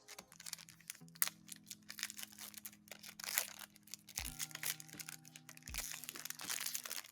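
Foil wrapper of a Pokémon trading-card booster pack being crinkled and torn open: a dense run of sharp, irregular crackles. Quiet background music with steady held notes plays underneath.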